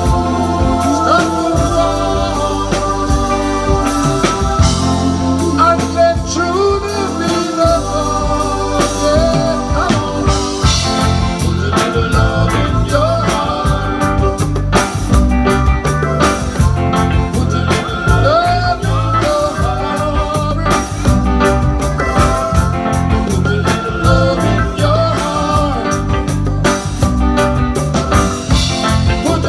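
Reggae music with singing over a strong, steady bass line.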